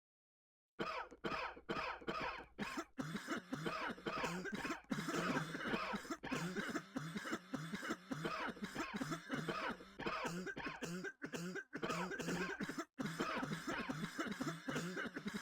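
Coughing over and over in quick, crowded succession, cutting in suddenly about a second in.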